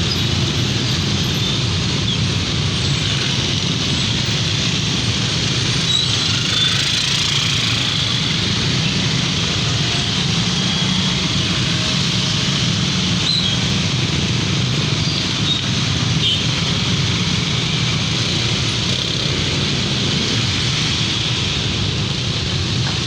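Steady roadside traffic in light rain: a constant hiss over the low hum of running vehicle engines, without clear breaks.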